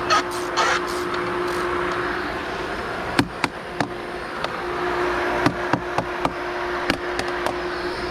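Pool pump running with a steady hum and rushing noise while the filter builds up pressure, with a handful of sharp knocks and clicks in the middle.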